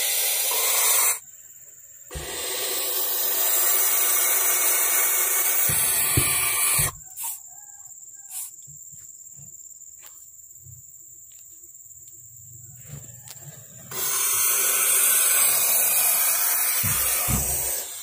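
Barn owl chicks hissing: long, rasping hisses that come in three stretches of one to five seconds, with quiet gaps between, the longest gap in the middle.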